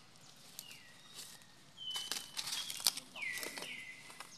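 Infant macaques giving about four short, high-pitched whining calls, each sliding down in pitch, with dry leaves crackling and rustling under the monkeys in the middle.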